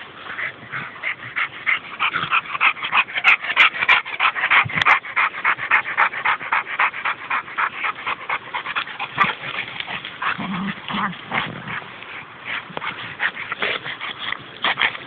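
A dog barking rapidly and without a break, several short high-pitched barks a second: excited barking at play.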